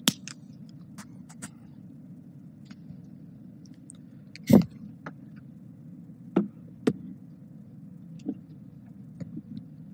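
Steady low room hum, with a handful of scattered sharp clicks and taps and one louder knock about four and a half seconds in.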